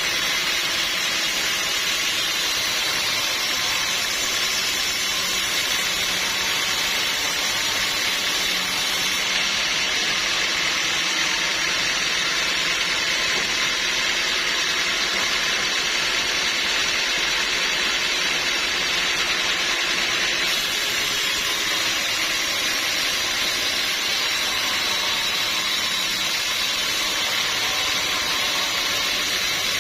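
Sawmill machinery running steadily: a constant mechanical noise with no breaks or changes.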